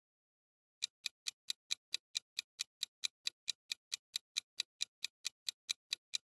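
Quiz countdown-timer sound effect: a clock ticking evenly at about four and a half ticks a second, starting just under a second in.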